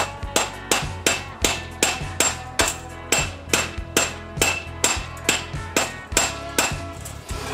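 A hammer striking the steel pipe frame of a chain-link gate in a steady run of about twenty blows, roughly three a second, each with a short metallic ring.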